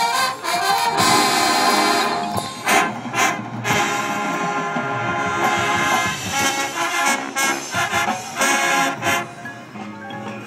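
Marching band playing its field show: sustained brass chords over sharp drum hits, growing softer near the end.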